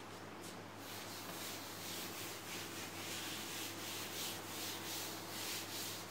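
A cloth rubbed back and forth across a chalkboard, wiping off chalk writing, in a run of repeated hissing strokes that begins about a second in.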